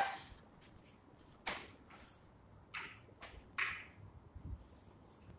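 A few scattered sharp clicks and knocks with short scuffs between them, from a paint roller on an extension pole being handled and put down at the paint tray.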